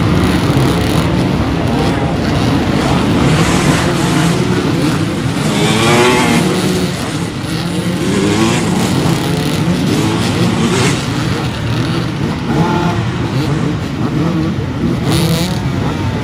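A pack of off-road dirt bikes racing off the start, many engines revving and accelerating at once. One engine revs up loudly about six seconds in.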